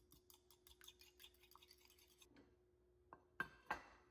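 Fork beating an egg in a small ceramic bowl, the tines clicking against the bowl about five times a second. The beating stops a little past halfway, and near the end come a few sharper clinks of crockery being set down, the two loudest close together.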